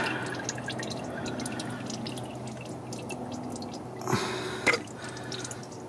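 Engine oil dripping from a freshly loosened oil filter: faint irregular drips over a steady low hum, with a brief rustle about four seconds in.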